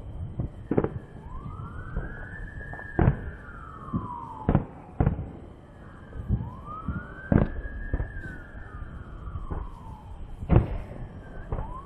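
A siren wailing, rising and falling slowly about every five seconds, among repeated sharp firework bangs.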